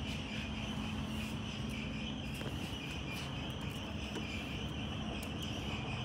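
Quiet, steady background ambience: an even, high chirring and a low steady hum, with a few faint clicks.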